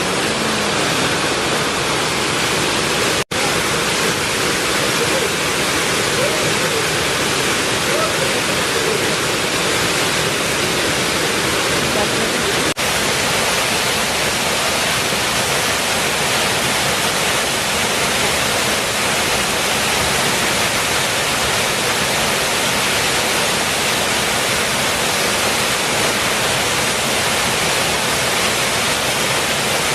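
A waterfall's steady, loud rush of falling water, with faint voices barely showing through it in the first few seconds.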